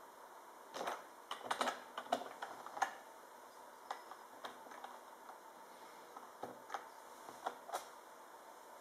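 Typing on a laptop keyboard: two irregular runs of keystroke clicks, a command being typed into a terminal.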